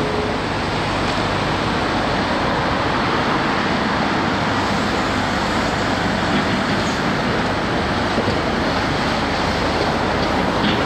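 Heavy diesel machinery running steadily: a continuous, even rumble with no distinct knocks or pauses.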